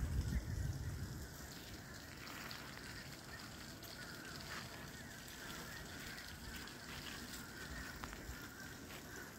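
A flock of geese honking in the distance, a continuous overlapping chatter, with a low rumble on the microphone in the first second or so.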